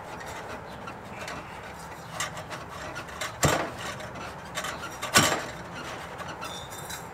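Metal clinks and knocks of a Porsche 996's chrome exhaust tip and muffler bypass pipe being handled and worked into place, with two sharper clanks about three and a half and five seconds in.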